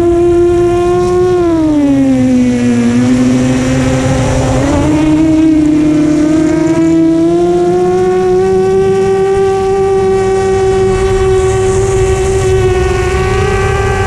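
Electric motors and propellers of an FPV drone in flight, a loud whine with wind rush. The pitch drops about two seconds in as the throttle eases, jumps back up near four and a half seconds, then slowly rises as the drone climbs.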